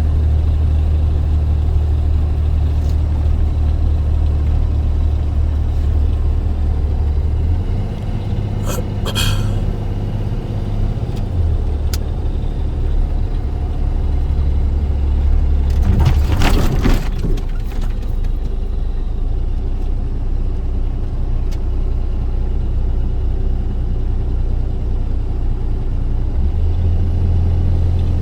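Box truck running down the road, heard inside the cab: a steady low engine and road drone. About nine seconds in there is a short higher pitched sound, and around sixteen seconds a louder noisy burst lasting about two seconds.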